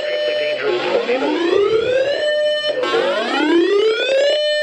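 Weather alert radio's electronic siren whooping: a rising wail about every two and a half seconds, each rise levelling off briefly and then cutting off. It is sounding the alarm for an incoming tornado warning.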